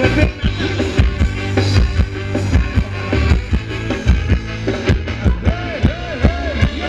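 Live Thai ramwong band music: a steady, loud drum-and-bass beat, with a lead instrument playing a run of repeated swooping notes near the end.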